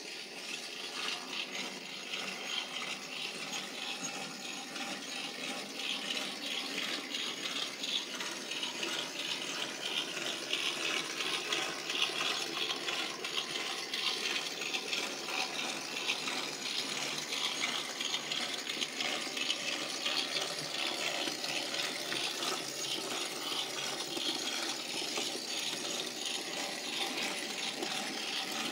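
OO gauge model train running on the layout's track: a continuous fine rattle and clicking of small metal wheels over the rails, with the motor's whirr. It grows slowly louder as the train comes nearer.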